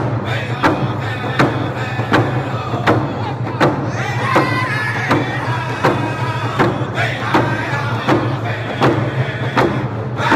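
A group of men singing a round dance song together while beating hand-held frame drums in a steady beat, about one stroke every three quarters of a second.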